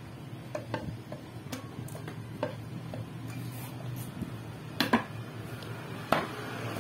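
Light clicks and knocks from the clutch cover of a Honda TMX 125 Alpha being handled and seated back onto the engine case, with a louder pair of knocks about five seconds in and another about a second later.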